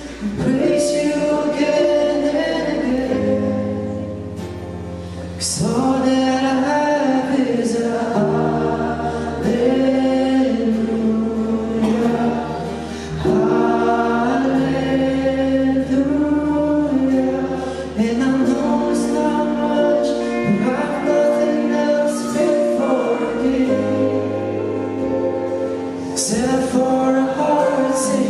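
Gospel worship music with a choir singing held notes over sustained bass chords that change every few seconds, and occasional cymbal crashes.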